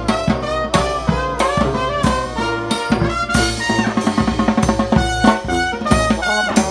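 Brass band playing: sousaphones, trombone and saxophone over a bass drum and snare drum, with drum strokes beating steadily.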